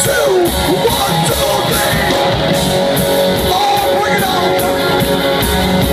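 Live rock band playing loud: electric guitar over a steady beat of about two strokes a second, with a male singer.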